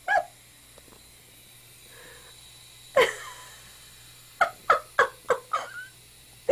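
A person laughing in short bursts: one near the start, another about three seconds in, then a quick run of five.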